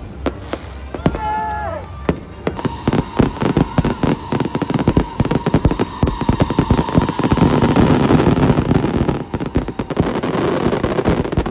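Crowd clapping and cheering, dense sharp claps throughout with shouts near the start, and a steady high tone held for several seconds in the middle.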